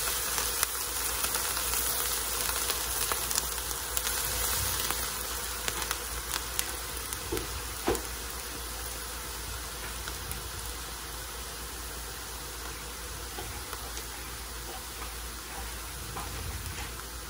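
Butter-brushed naan sizzling on a ridged grill plate: a steady hiss with scattered small crackles, louder for the first few seconds and then easing off.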